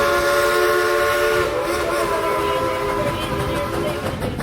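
Steam locomotive chime whistle blowing one long blast, several notes sounding together as a chord; the chord shifts slightly about a second and a half in and the whistle cuts off near the end.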